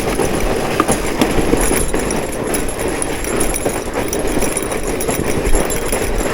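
Fat bike riding over a snowy trail: the fat tyres crunching and rolling through packed snow, with a dense run of small knocks and rattles from the bike.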